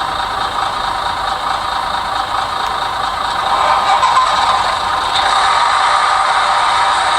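Diesel railcar engine sound from the Hornby TXS DCC sound decoder in a Dapol Class 121 model, running steadily through the model's small speaker with little bass.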